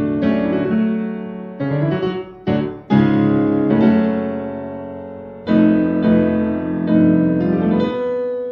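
Solo piano music: chords struck one after another, each left to ring and fade before the next.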